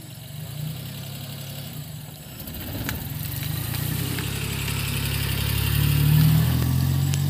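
Maruti Suzuki Omni van's small three-cylinder petrol engine pulling away and driving past close by, growing steadily louder and loudest about six seconds in.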